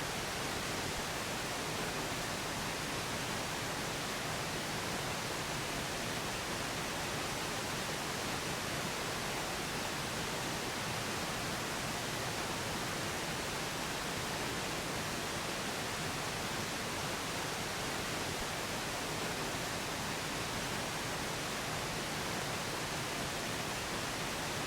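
Steady pink noise, an even hiss with no changes, masking a subliminal voice track of an affirmation looped and layered beneath it.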